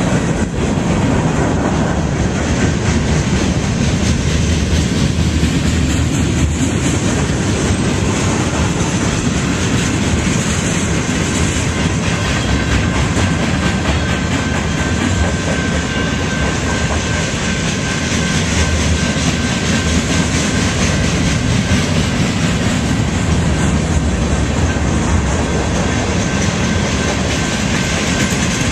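Freight train cars rolling past: a loud, steady rumble of steel wheels on the rails, unbroken throughout.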